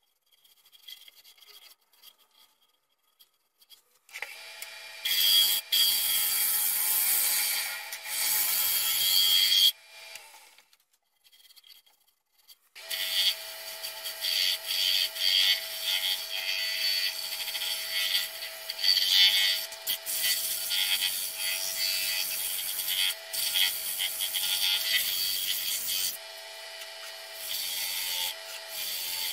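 Wood lathe turning a chestnut plate while a handheld turning tool cuts into the spinning wood, a rough scraping noise of shavings coming off over the steady hum of the lathe. The cutting comes in two spells, one starting about four seconds in and stopping around ten seconds, the other starting about thirteen seconds in and running on.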